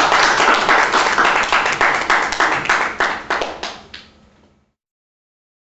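Small audience applauding, the clapping thinning out and fading away after about four seconds.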